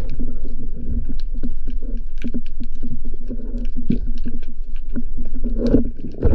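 Underwater sound heard through an action camera's housing: a muffled low rumble and steady hum with many small clicks and crackles, and a louder burst near the end.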